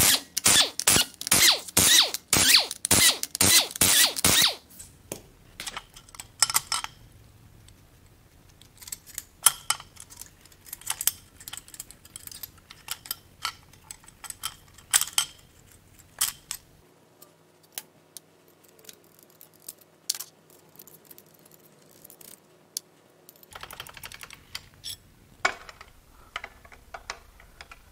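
Bolts on a Nissan SR20DET's main cap girdle being undone with a wrench: a few seconds of rapid, loud tool clicking, then scattered metallic clinks and taps as bolts and parts are handled.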